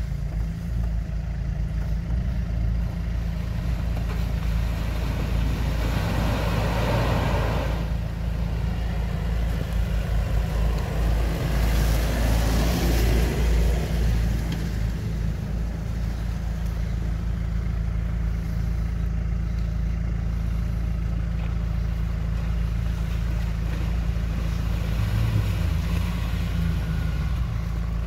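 Off-road 4x4 SUV engines running as the vehicles crawl along a snowy, muddy track, a steady low hum with two louder surges about six and twelve seconds in.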